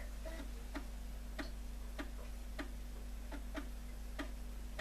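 Built-in 3.5-inch floppy disk drive of a Korg 01/W FD synthesizer reading a disk during a load: the head steps with evenly spaced short ticks, about eight of them, over a low steady hum.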